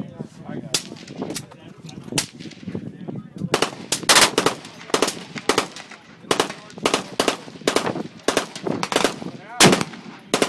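Gunshots: a Glock 18C pistol firing a long string of sharp single shots and quick pairs, a fraction of a second apart, with gunfire from other guns on the range mixed in.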